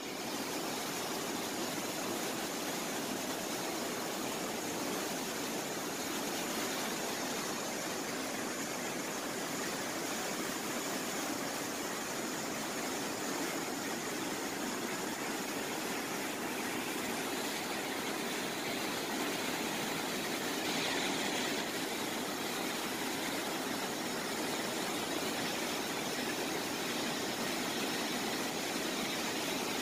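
A bridge waterfall: a heavy sheet of water pouring from the bridge and splashing into the canal below, heard as a steady rushing noise.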